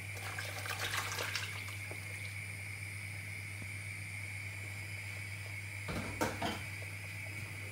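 Meat stock from cooking shaki and pomo poured from a glass bowl into a large pot of tomato stew, splashing in the first second and a half. A single sharp knock about six seconds in, over a steady background hum.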